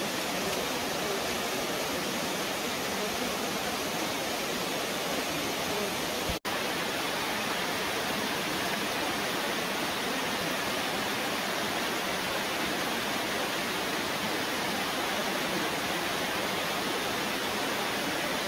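A small waterfall cascade rushing steadily into a creek pool, with one very brief break in the sound about six seconds in.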